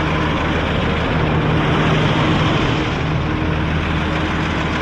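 Dump truck's diesel engine idling steadily.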